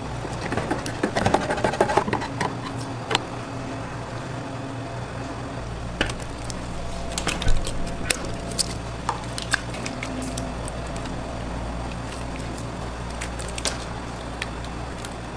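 A hand can opener works around a large tin can of tomato sauce, followed by scattered metallic clinks and knocks as the cans are handled and emptied into a large metal pan. A steady low machine hum runs underneath.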